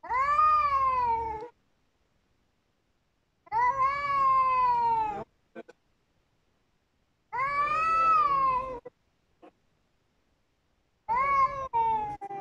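Cats yowling in a face-off: four long, drawn-out cries a few seconds apart, each rising then falling in pitch, the threat yowls of a territorial standoff.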